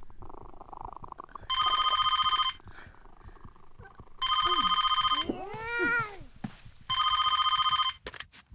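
Telephone bell ringing: three rings of about a second each, roughly every two and a half seconds, each a rapid, trembling bell tone.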